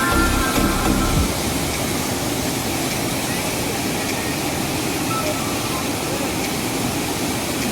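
Steady roar of a large waterfall, an even rush of falling water. The last notes of a music jingle die away about a second in.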